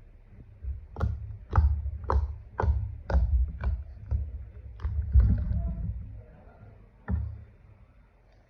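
Slime being squeezed and poked by hand: a run of sharp clicks and pops with low thumps, about two a second, then a last one about seven seconds in.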